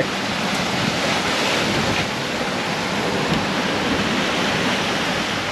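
Wind and rough seas rushing past a sailing yacht under way: a steady wash of breaking waves and spray around the hull.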